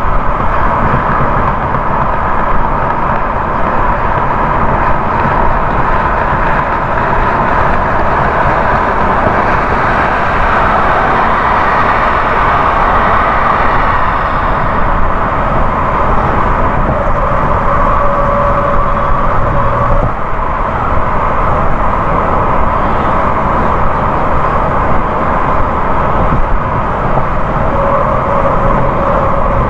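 A car driving at highway speed, its steady tyre and road noise running evenly with engine hum underneath.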